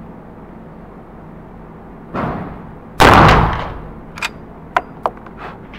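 A single loud rifle shot from an 1873-model lever-action sporting rifle in .45 Colt, about three seconds in, with a reverberating tail that dies away over about a second. A fainter bang comes about a second before it, and a few sharp clicks follow.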